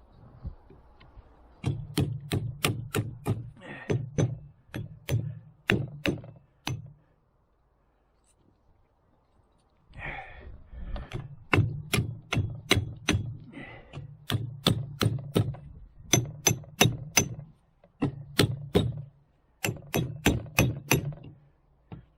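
Repeated hammer blows during strut replacement on a car, about two to three a second in runs of several seconds, with a short quiet break after the first run.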